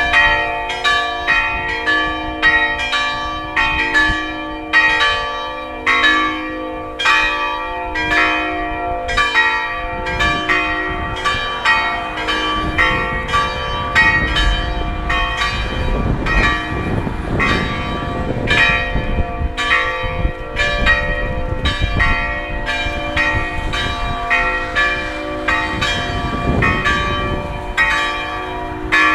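Three church bells ringing together in a peal, their strikes overlapping at about two to three a second, each leaving a long ringing hum. A low rumble comes in under the bells around the middle and again near the end.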